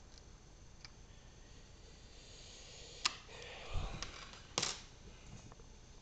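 Small metal lockpicking tools and a key being handled by hand: a sharp click about halfway through, then a rustle with a dull bump, and a louder cluster of clicks shortly after.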